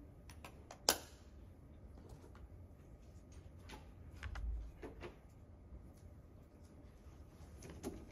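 Quiet room with scattered small clicks and knocks: one sharp click about a second in, a low thump about four and a half seconds in, and a few faint clicks near the end.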